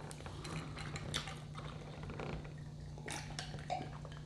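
Quiet eating sounds at a close microphone: scattered small clicks and taps, busiest about three seconds in, over a steady low hum.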